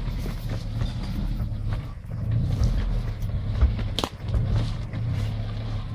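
Suzuki 4x4's engine running steadily at low revs as it crawls over rocks, with a sharp knock about four seconds in.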